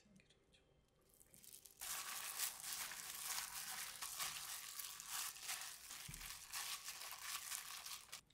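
A hand in a thin disposable plastic glove kneading and squeezing ground beef in a glass bowl: a dense, crackly crinkling of the plastic mixed with the mashing of the meat. It starts suddenly about two seconds in and stops just before the end.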